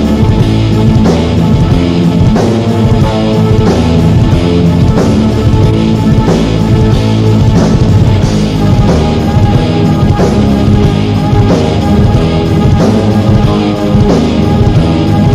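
Hard rock / alternative rock band playing: guitar and drum kit, from an old cassette demo recording.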